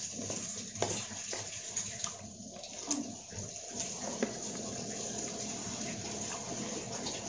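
A steady rushing noise like running water throughout, with a few sharp clicks of a metal spoon against a plastic bowl of fried rice vermicelli in the first half.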